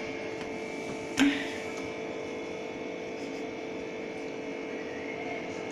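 Steady electrical hum of room tone, with one brief sharp sound about a second in.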